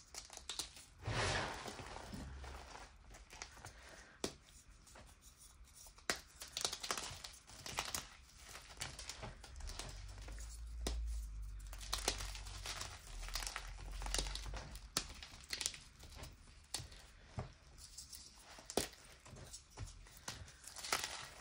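Gym chalk powder and crumbled chalk lumps rubbed and crushed between fingers: gritty, crunchy crumbling with irregular sharp crackles and soft powdery swishes, and a louder crunch about a second in.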